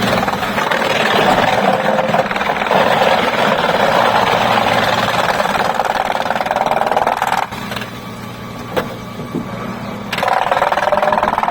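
Sawmill machinery running loudly, easing off about seven and a half seconds in and starting up loud again near the end.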